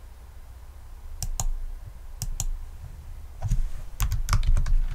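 Keystrokes on a computer keyboard: two pairs of separate clicks, then a quicker run of typing near the end.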